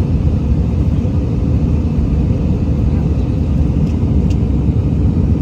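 Airbus A319 airliner cabin noise: a steady, loud low rumble of the jet engines and airflow heard from inside the passenger cabin.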